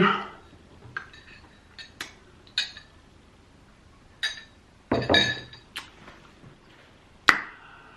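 Light clinks and taps of tableware being handled, about half a dozen short, separate strikes. A slightly longer, louder sound comes about five seconds in, and a sharp click comes shortly after seven seconds.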